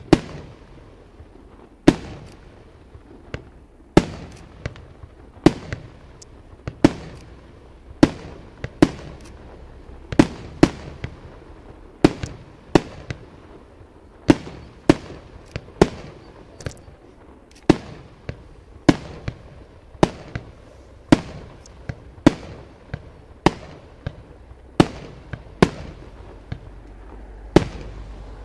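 Aerial firework shells bursting one after another in a steady sequence, a sharp bang about every second, often two in quick succession, each with a short echoing tail.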